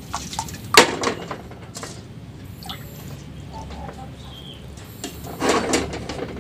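Water sloshing and dripping in a pot of washed rice as the water level is adjusted, with a sharp clink of the pot about a second in and a short splash near the end.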